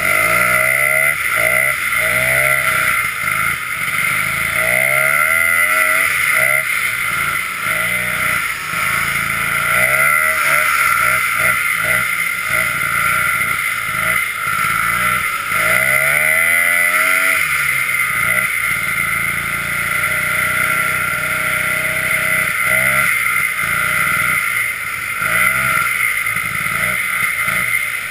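Snowmobile engine running while riding, its pitch rising and falling again and again as the throttle is opened and eased off, over a steady high whine.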